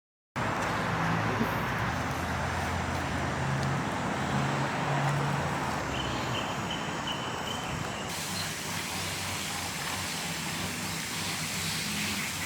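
Steady road and engine noise of a moving vehicle, with a low hum under an even rush of noise. It begins abruptly just after the start and its higher part shifts about two-thirds of the way through.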